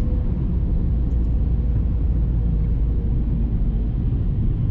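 Steady low rumble of a car driving, engine and tyre noise heard from inside the cabin, with a faint steady hum over it.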